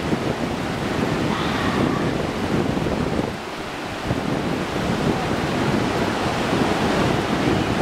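Ocean surf breaking and washing up the beach in a steady wash of noise, with wind buffeting the microphone.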